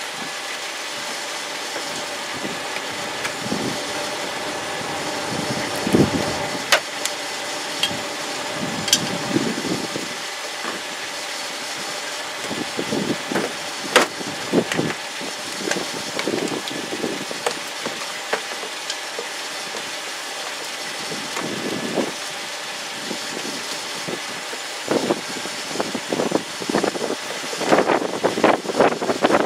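Steady mechanical hum, with frequent sharp clicks, clanks and knocks of hand work on the car. The knocks come in a dense cluster near the end.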